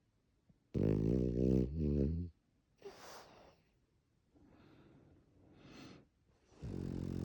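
French bulldog snoring: a loud, fluttering snore about a second in that lasts over a second, softer snuffly breaths after it, and a second loud snore starting near the end.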